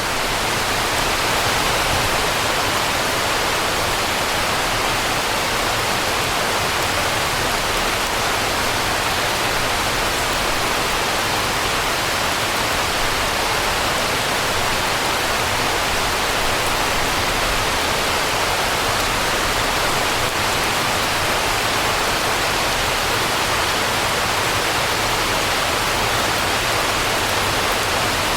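Steady rain falling on concrete and stone, an even hiss, with a low, steady hum of distant city traffic underneath.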